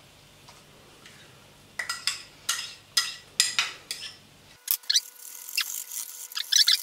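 A metal spoon knocks sharply against the bowls about six times as mascarpone is scooped into a stainless steel mixing bowl. After that a utensil scrapes and clinks around the steel bowl as the mascarpone is mixed into the whisked yolks.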